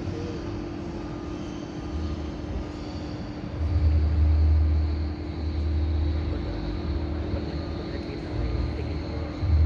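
Steady hum under a low, uneven rumble that swells and fades, loudest from about three and a half to five seconds in.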